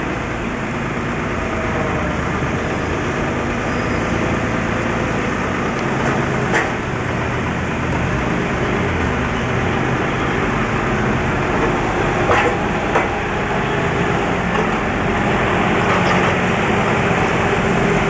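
Forklift engine running steadily while it lifts and backs away with a stack of plastic fish crates, with a few short knocks along the way.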